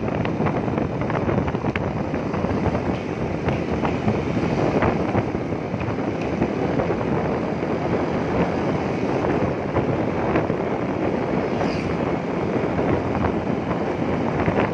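Steady wind rushing over the microphone of a camera riding on a moving motorcycle, with road and vehicle noise underneath.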